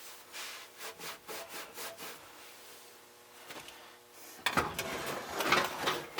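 Hand-tool work on an old reel mower during teardown: a run of faint rubbing, scraping strokes, then louder clicks and clatter of metal parts from about four and a half seconds in.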